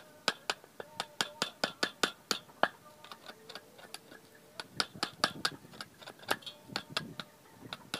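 Machete blade striking and shaving a bamboo stake held on a wooden log: a quick run of sharp knocks, several a second, with a short lull partway through.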